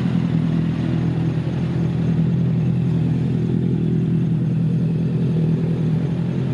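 A vehicle engine idling steadily with a low, even drone.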